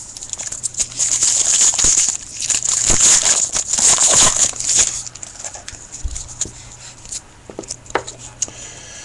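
Foil wrapper of a hockey card pack crinkling and tearing as it is ripped open by hand, loudest in the first half. Then quieter rustling and light clicks as the cards are slid out of the pack.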